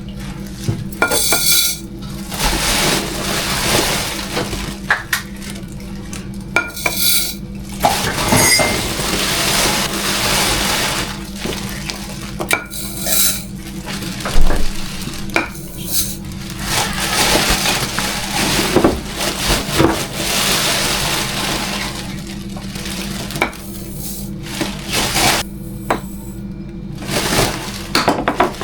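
Dishes, pots and cutlery being handled, with clattering and clinking and many sharp knocks, some of them loud.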